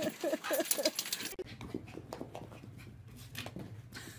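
A dog calling in a quick run of short pitched calls, about four or five a second, that stops abruptly about a second in. After that there are only faint knocks over a low steady hum.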